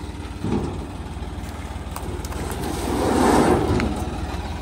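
An engine running steadily with an even low throb, and a louder rushing swell about three seconds in.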